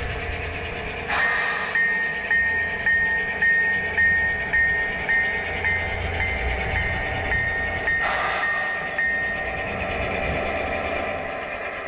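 Phoenix BigSound sound system in a model EMD E8 diesel locomotive, playing through its speaker: a steady diesel engine rumble, with the locomotive bell ringing about twice a second from about a second in until near the end. Two short rushes of noise come near the start and about eight seconds in.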